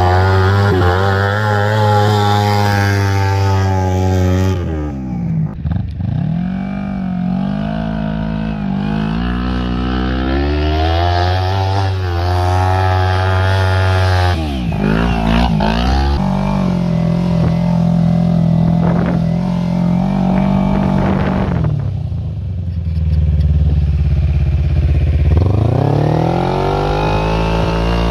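Small go-kart engine running under way. Its pitch falls away and climbs back again three times as the throttle is let off and reopened.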